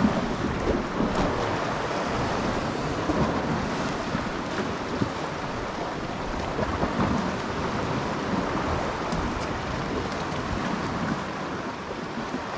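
Steady wind noise rumbling on the microphone, over the wash of the sea against the rocks.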